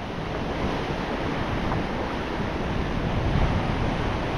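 Shallow surf washing in over the sand, a steady wash of water, with wind rumbling on the microphone.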